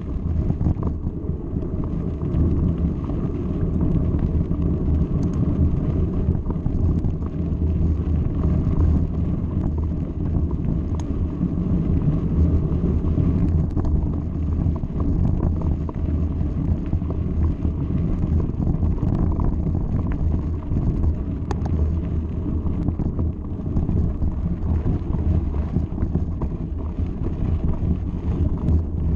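Mountain bike rolling fast over a gravel track: a steady low rumble of tyres and frame vibration mixed with wind buffeting the camera's microphone.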